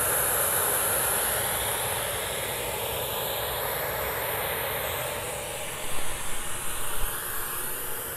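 White noise test signal played through a JBL Creature 2.1 speaker system with newly fitted 40 mm satellite drivers, panning from speaker to speaker so its tone shifts as it moves. A few brief low bumps come about six and seven seconds in.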